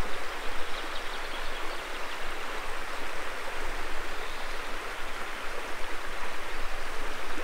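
Shallow stream water running steadily over a gravel riffle, an even rushing hiss.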